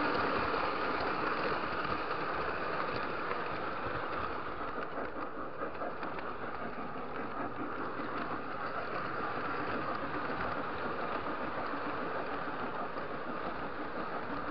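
Lionel model train running along the track, its electric motor humming and the wheels rattling steadily over the rails, heard close up from a camera riding on the train.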